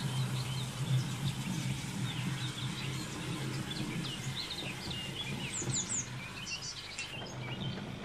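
Wild birds singing: a string of high chirps and short song phrases, busiest after the middle, over a low steady hum.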